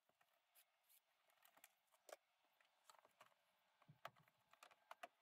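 Near silence, broken by faint scattered clicks and taps, the clearest about two seconds in.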